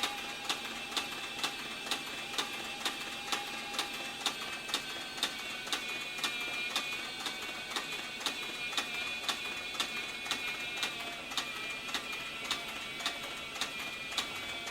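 Cowboy CB4500 walking-foot harness stitcher sewing thick saddle leather at a slow, even pace: a sharp click with each stitch, a little over two a second, over the steady whine of its motor.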